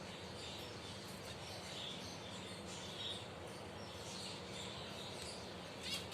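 Finches chirping: soft, repeated short chirps with a sharper call near the end, over steady background noise.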